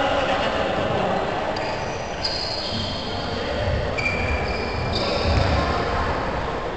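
Echoing sports-hall background with dull low thumps, like balls bouncing on the court, and faint high held tones that step in pitch.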